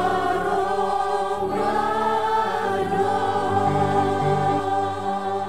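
Mixed choir singing over backing music, settling into a long held final chord.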